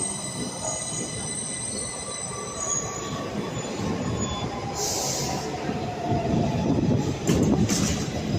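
Several steady high-pitched squealing tones over a loud rumbling noise; the squeal fades over the first few seconds. There is a short hiss about five seconds in, and a few sharp knocks near the end as the rumble grows louder.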